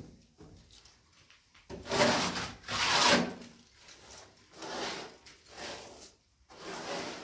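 Steel plastering trowel scraping across a wet mud-plastered wall: about five long scraping strokes, the two around two and three seconds in the loudest.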